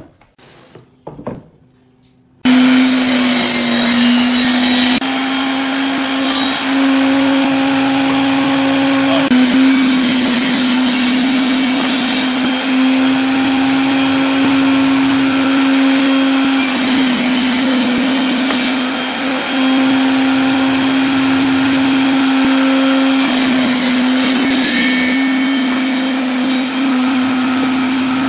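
Table saw running with a loud steady motor hum, ripping a strip of wood; a hissing cutting noise swells in stretches and the pitch sags slightly under load. It comes in abruptly about two seconds in, after a few light knocks of wood.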